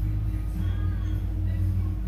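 Music with a singing voice, heard over the steady low drone of the towboat's engines.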